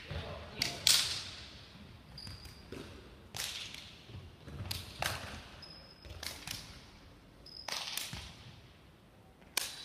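Sports shoes landing on an indoor sports hall floor during hopping and jumping drills through agility rings: sharp landings, mostly in quick pairs, every second or so, echoing in the large hall, with short shoe squeaks between them. The loudest landing comes about a second in.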